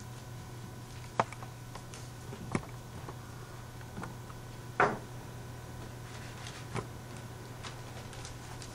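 Objects being handled on a stage table: four short, separate knocks and clicks, the loudest about five seconds in, over a steady low hum.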